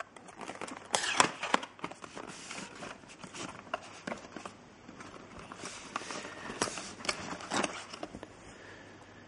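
Handling of cardboard packaging: rustling and crackling with many irregular sharp clicks as cables are dug out of a box, loudest about a second in.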